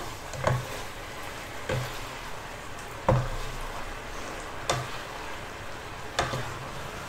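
Egg noodles and Chinese broccoli sizzling in a wok as their dark soy braising sauce cooks down and is nearly all absorbed. A spatula stirs them, knocking against the pan five times, about every second and a half.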